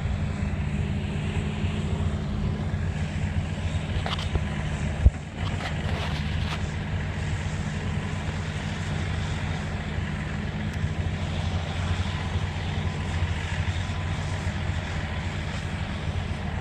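Diesel engines of excavators and a bulldozer running steadily at work, with a single sharp knock about five seconds in and a few lighter clanks around it.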